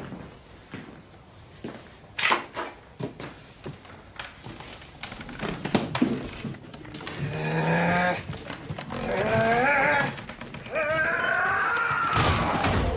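A man's loud, drawn-out straining yells, three long cries that bend and rise in pitch, as he wrenches a wooden changing-room bench loose. They come after a few scattered knocks and thuds in the first seconds.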